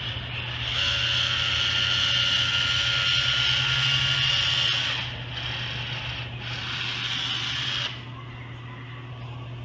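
Cordless battery-powered caulking gun's motor whining as it drives the plunger to lay a thin bead along the windshield molding edge. It runs for about four seconds, eases off, runs again for about a second and a half, then stops.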